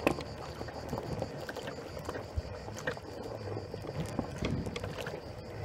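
Wheels of a PathWay ES6 S off-road self-balancing transporter rolling through shallow river water over a stony bed: steady splashing and rushing of water, with scattered clicks and knocks of pebbles under the tyres.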